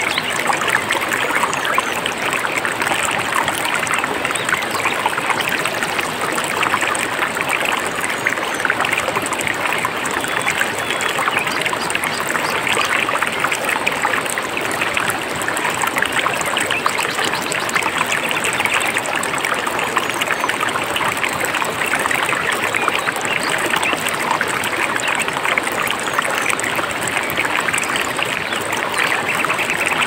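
Mountain stream flowing steadily.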